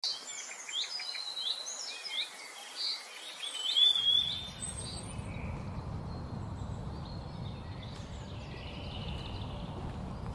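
Birds singing, a run of chirps and warbling phrases, for about the first four seconds. Then the sound changes suddenly to a steady low rumble with faint birdsong over it.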